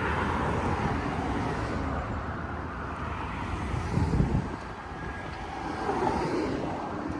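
Ryobi 48V battery riding lawn mower driving over grass with its blade off: the quiet electric drive and the wheels give a steady low rumble, with wind on the microphone and a louder low rumble about four seconds in.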